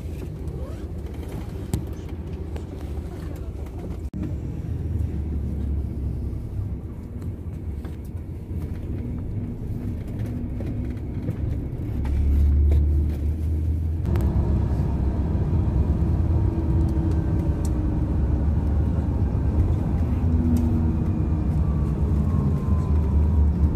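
Intercity bus engine and road rumble heard from inside the cabin while the bus drives, a steady low drone that grows louder about halfway through.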